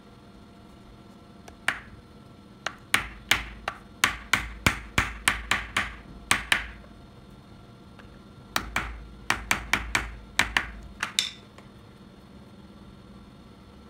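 A mallet tapping a small steel ball bearing down onto the shaft of a brushless (BLDC) fan motor rotor to seat it. There are two runs of sharp, ringing taps, about three a second, with a pause of a couple of seconds between them.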